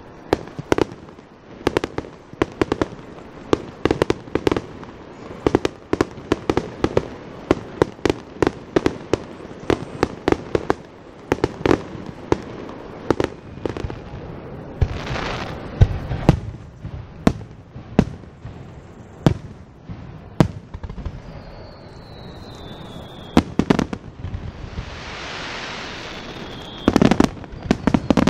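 Aerial fireworks shells bursting in rapid succession: a dense run of sharp bangs and cracks, with a falling whistle about three-quarters of the way through, then a hiss and a loud crackling barrage near the end.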